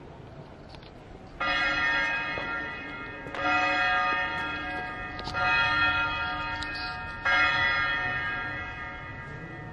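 A single church bell tolling four strokes about two seconds apart, each one ringing on and fading until the next is struck.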